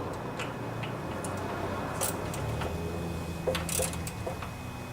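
Scattered faint clicks and a few short sharp ticks of hand tools and small metal engine parts being handled during carburetor reassembly, over a low steady hum.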